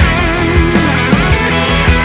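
Country-rock music: an instrumental break with electric guitar and a steady drum beat.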